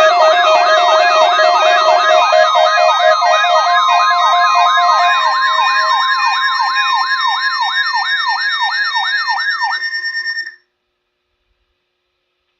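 Electronic alert signal: a siren-like falling sweep repeating about three times a second over several steady tones, ending abruptly about ten and a half seconds in. It is the attention signal ahead of an Emergency Alert System monthly test message.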